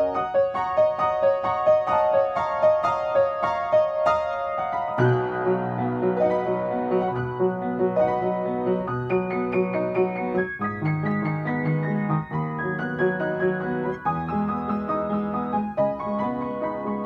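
Upright piano played solo. For about the first five seconds a quick melody sounds only in the treble; then bass notes and fuller chords come in beneath it.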